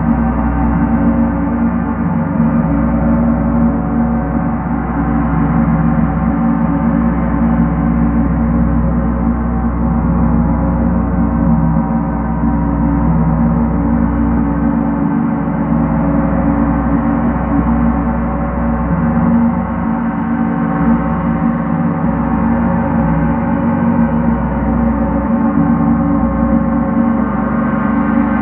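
Large gong played continuously with a pair of felt-headed mallets, building a steady, rolling wash of many overlapping ringing tones. The sound is strongest in the deep range, and no single strike stands out.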